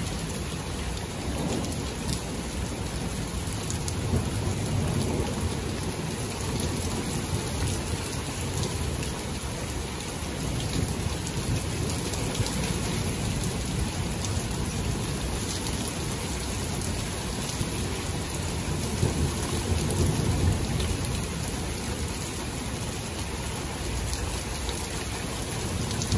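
Steady rain falling, with low rumbles of thunder rising and fading, the strongest about twenty seconds in.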